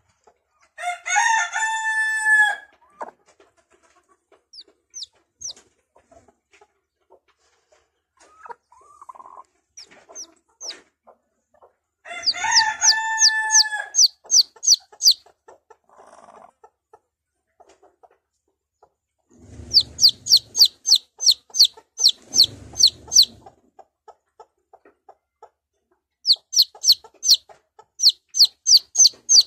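A chick peeping in runs of high, sharp peeps, about three or four a second: a chick calling for its mother hen. Twice, near the start and about halfway through, an adult hen answers with a long drawn-out call.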